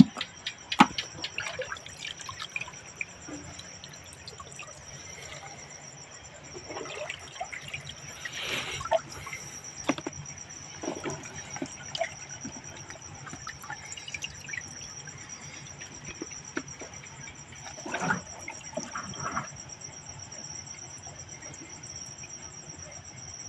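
Freshly caught wet fish being handled in a plastic basin: scattered slaps, drips and trickles of water at irregular moments. A steady high chirring of insects runs underneath.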